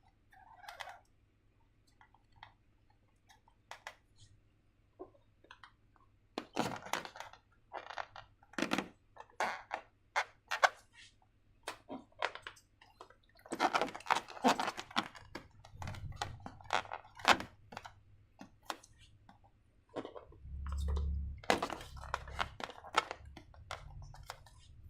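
Hands handling slime-making materials and balloons at close range: scattered sharp clicks, taps and crackly rustles, thickest in a couple of busy spells, with a few low thumps near the end.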